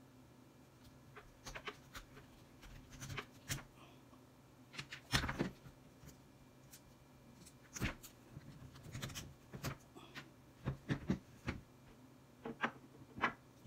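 Magpul polymer rail covers being worked off the Picatinny rails of a rifle's quad-rail handguard. It is a run of irregular small clicks, scrapes and knocks, the loudest about five seconds in.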